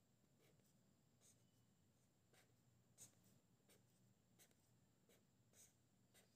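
Near silence, with faint, irregular short scratches of a pen drawing strokes on paper.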